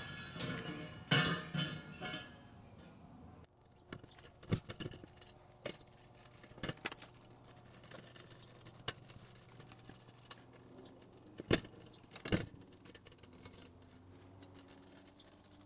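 Expanded steel mesh and steel frame pieces handled on a workbench: scattered sharp metallic clinks and clanks, a dozen or so, the loudest two near the end. Background music plays at first and cuts off about three and a half seconds in.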